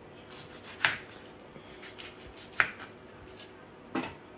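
Knife slicing tomatoes on a cutting board: three sharp knocks of the blade hitting the board, spaced one to two seconds apart.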